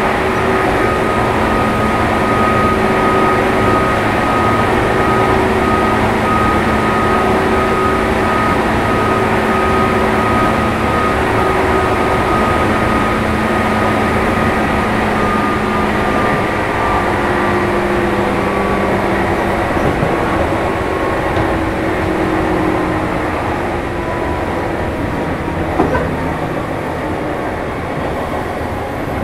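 JR 201 series electric train running, its traction motors whining over the rumble of wheels on rail. The motor tones sink slowly in pitch and the sound eases a little as the train slows, with one short click near the end.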